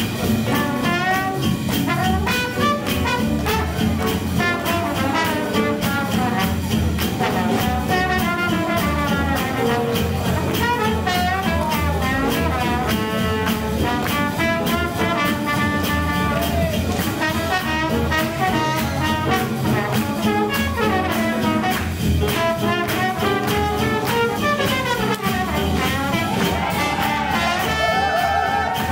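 Live swing jazz band playing, with brass horns carrying the melody over a steady drum beat.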